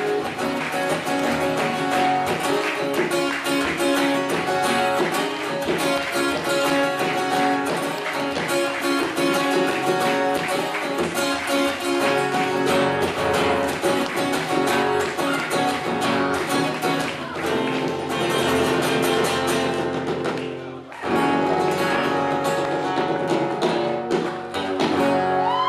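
Two acoustic guitars strumming and picking a lively instrumental passage, with no singing. The playing drops out for a moment about 21 seconds in, then comes back.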